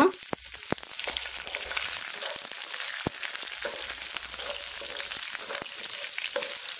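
Hot oil sizzling in a frying pan as garlic cloves, ginger and green chillies go into frying whole spices, with a few sharp clicks as pieces drop in, then a wooden spatula stirring near the end.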